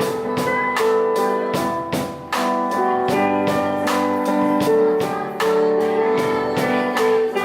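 Jazz piano trio playing: piano chords over drums keeping a steady beat.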